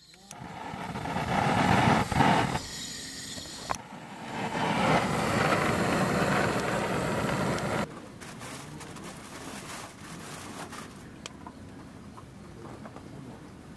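Handheld gas blowtorch blowing a hissing flame onto firewood in a small folding steel wood stove, in two long bursts with a click between them. After the torch stops, the newly lit wood fire crackles faintly.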